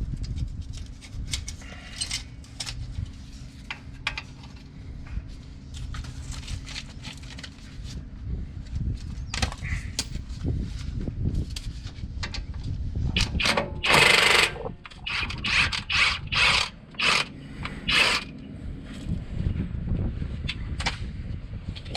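Tools and metal parts knocking and clanking during hands-on work on a truck's front brakes, over a steady low rumble. Several louder strokes come in a cluster past the middle, the loudest lasting about half a second.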